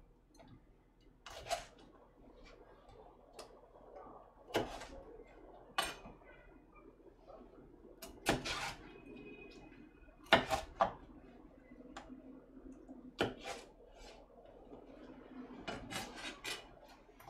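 Kitchen knife cutting a vegetable on a cutting board: single sharp chops and knocks every second or two, with quieter rubbing and shuffling of the pieces between them, and a quick run of several chops near the end.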